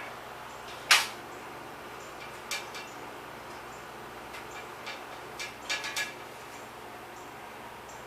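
Sharp metallic clinks and taps of tools and bicycle parts during repair work: one loud clink about a second in, then a few lighter ones, some in quick pairs and threes.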